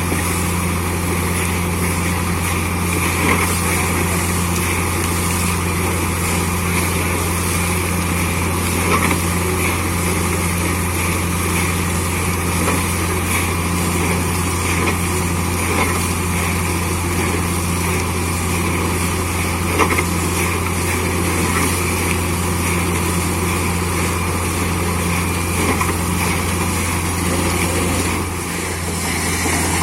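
Borewell drilling rig and its air compressor running steadily: a deep, even drone with a hiss over it. It dips briefly near the end.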